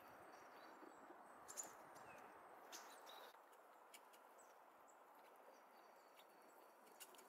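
Faint outdoor ambience with soft, distant chirps of small birds and a few light taps near the start.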